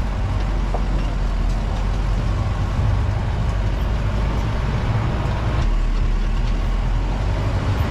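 Off-road jeep running steadily while being driven along a rough dirt track, a continuous low engine and road rumble.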